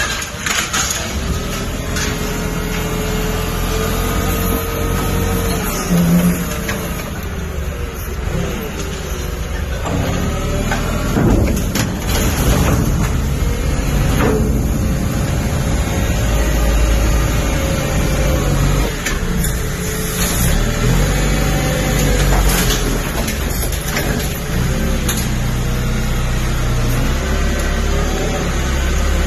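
An engine running and working, its pitch rising and falling again and again, with a few sharp knocks in between.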